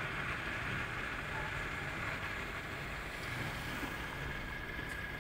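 Faint, steady street traffic noise from passing motorcycles and cars.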